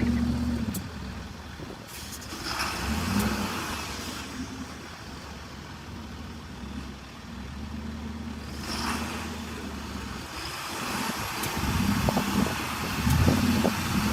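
Heavy vehicle engine running with a low hum that rises and falls, with two short rushes of noise, one near the start and one about two-thirds of the way through.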